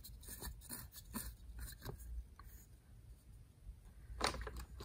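Plastic handling sounds as a white plastic connector is twisted off the ribbed lower duct hose of a Shark Rotator vacuum: faint clicks and scrapes through the first two seconds, then a louder click about four seconds in.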